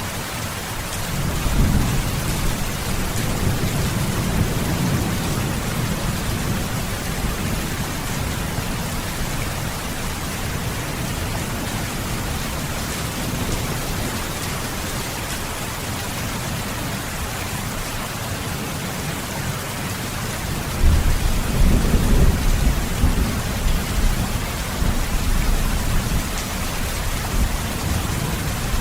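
Steady heavy rain with thunder rumbling twice: a rolling rumble early on, and a louder one that breaks in suddenly about two-thirds of the way through and fades over several seconds.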